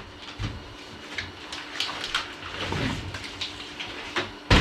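Scattered light clicks and knocks from handling a new metal tool cabinet, with one sharp, loud knock about four and a half seconds in.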